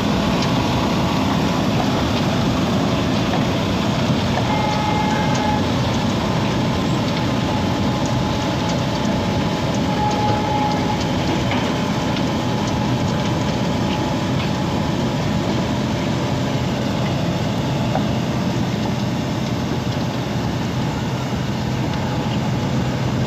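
Wirtgen cold milling machine running steadily and loud, its diesel engine and rotating cutter drum grinding off the old asphalt surface as it creeps forward. Twice a brief faint whistle-like tone rises above the din.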